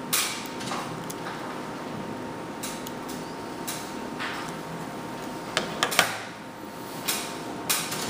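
Handling noise from a small plastic wireless microphone receiver turned over in the hands close to the microphone: scattered rustles, clicks and knocks, with a quick cluster of sharper knocks about six seconds in.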